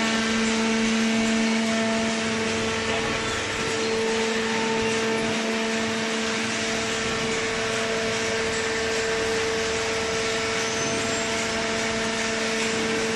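Horizontal cardboard baler with infeed conveyor running: a steady machine hum holding one pitch over an even hiss of mechanical noise.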